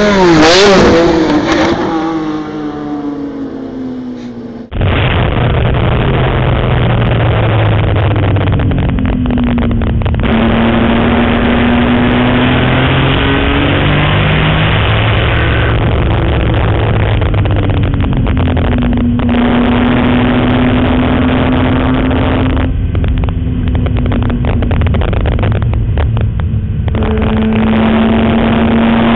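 BMW M3 race car at full throttle passing a trackside camera, its engine note falling in pitch and fading as it drives away. About five seconds in, it switches abruptly to the loud engine heard from inside the cabin as the car is driven hard on track. The pitch climbs through the gears and drops at shifts, with several brief lifts off the throttle.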